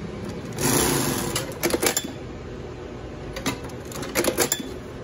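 Mitsubishi 1/4-inch split-needle-bar double-needle industrial sewing machine running in short bursts, with clusters of sharp clacks from its mechanism, twice. Just before, the fabric being handled under the needles gives a brief rustling rush.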